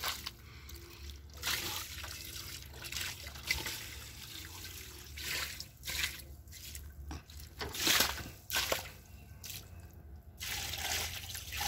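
Water splashing and sloshing in a bucket in irregular surges.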